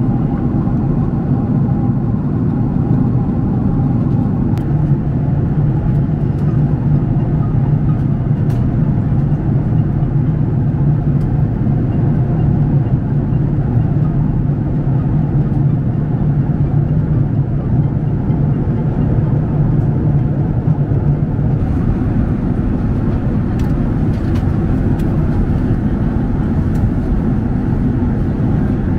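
Steady cabin drone of a Boeing 767-300ER in cruise: a deep rumble of engines and airflow heard from inside the economy cabin, with a few faint clicks now and then, more of them near the end.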